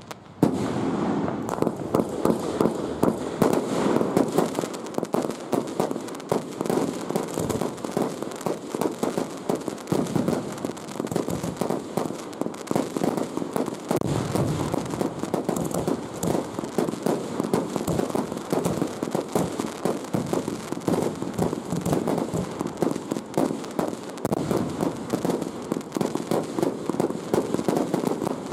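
Fireworks show: a dense, continuous barrage of exploding shells and crackling bursts. It starts with a sudden bang after a brief lull.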